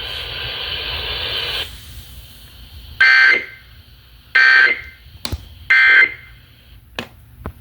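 Emergency Alert System end-of-message data tones: three short buzzy bursts about a second and a half apart, closing the weekly test broadcast. They come after a second or two of steady radio hiss, and a couple of sharp clicks fall between and after them.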